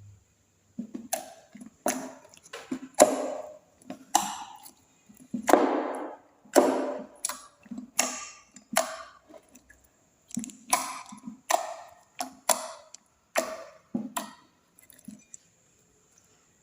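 Clear slime being pressed and squished by hand, making a series of sharp wet pops and clicks about one to two a second, which stop about fifteen seconds in.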